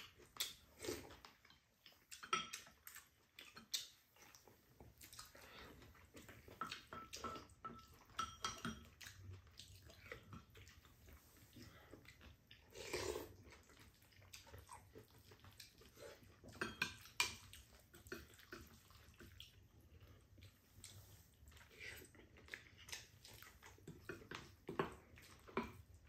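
Quiet eating sounds of two people having bean sprout rice bowls: spoons scraping and clicking against ceramic bowls, with chewing, in scattered short sounds. The loudest clink comes about seventeen seconds in.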